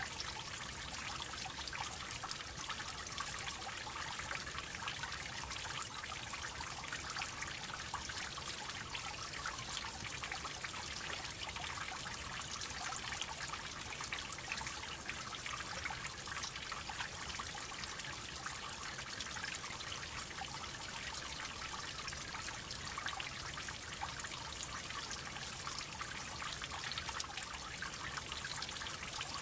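Water droplets falling in a steady, dense patter of many small drips, blending into a continuous trickle.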